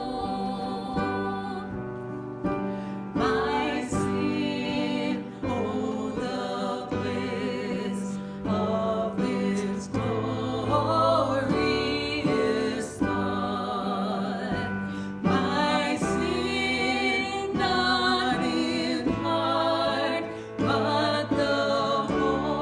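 A worship song: singing with instrumental accompaniment.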